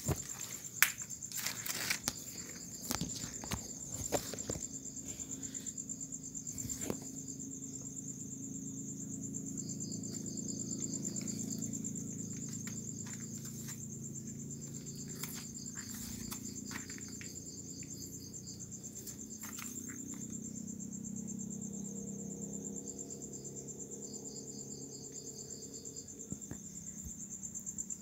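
Night insects, crickets, trilling in one steady high unbroken trill, with a second insect chirping in short pulsed runs now and then. Several sharp clicks come in the first seven seconds.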